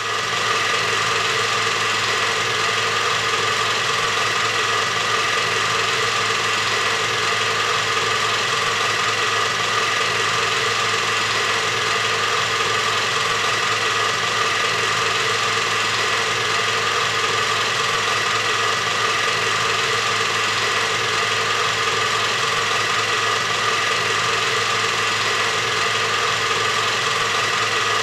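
Film projector running: a steady mechanical whir with a fine rattle that does not change.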